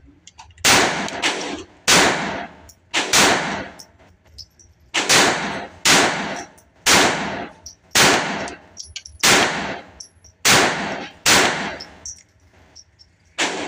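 Mauser M20 .22 LR pistol fired in slow single shots, about eleven of them, roughly one a second with two short pauses. Each shot rings off in the echo of the indoor range.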